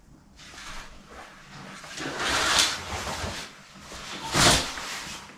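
Heavy curtains being pulled open along their rail: a longer swish about two seconds in, then a shorter, louder one about four and a half seconds in.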